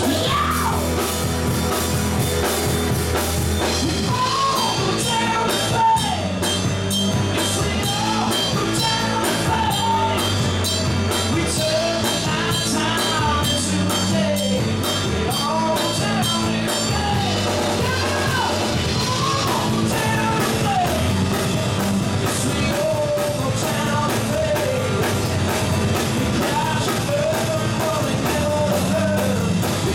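Live rock band playing: a man singing over two electric guitars, electric bass and drum kit.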